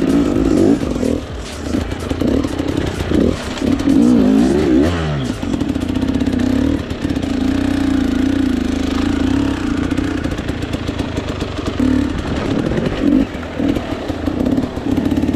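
Enduro dirt bike engine under way, revving up and down with the throttle for about the first five seconds, then running at a steadier pitch with brief dips.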